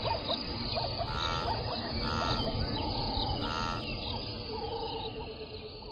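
Wildlife ambience of many birds and other small animals chirping and calling, with one harsher call repeated three times, over a low rumble; it fades down toward the end.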